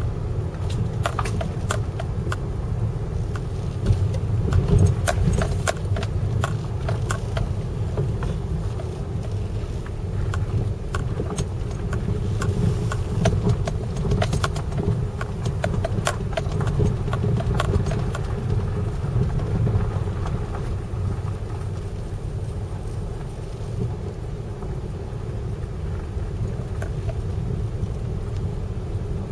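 Steady low engine rumble with irregular light rattling and clicking over it, busiest in the first half.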